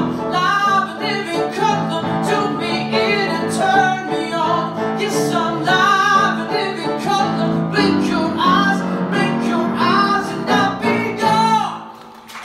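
Male singer performing a show tune live with a backing band. The music stops about a second before the end.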